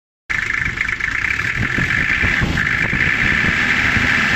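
Toyota 1HZ 4.2-litre inline-six diesel engine idling, a low running clatter with a steady high-pitched whine over it.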